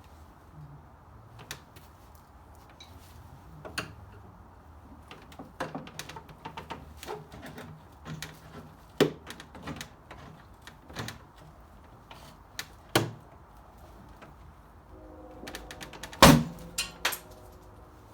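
Irregular clicks, knocks and clatter of hand-work dismantling an old console stereo cabinet. There is one loud knock about sixteen seconds in, with a brief ringing after it.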